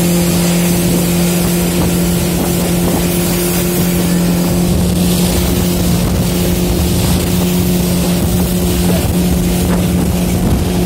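Speedboat engine running steadily at speed, a constant drone with a hiss of wind and water over it.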